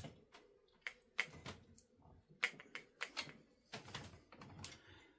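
One-handed grease gun pumped onto the small grease nipples of a Myford lathe headstock: a series of sharp, irregular metal clicks and clacks from the gun's lever and nozzle.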